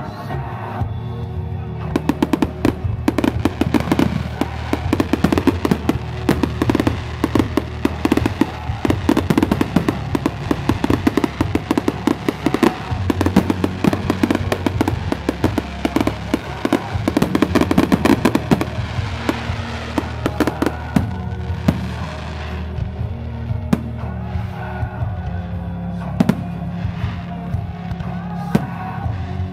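Fireworks display: dense, rapid crackling and popping of bursting shells for most of the stretch, thinning to scattered bangs near the end. Music plays underneath throughout.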